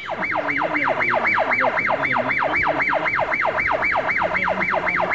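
Electronic emergency-vehicle siren: a loud tone that sweeps quickly from high to low and snaps back up, about four times a second.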